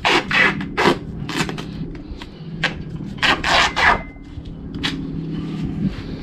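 Several short rasping scrapes and rubs, some in quick pairs, over a steady low hum.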